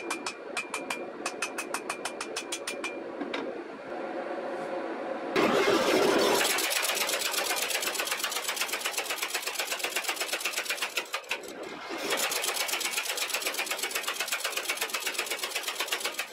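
A hand hammer strikes hot Damascus steel on an anvil at about four blows a second, each blow ringing. About five seconds in, a power hammer starts pounding the glowing blade with rapid, even blows, several a second, and goes on with a brief break.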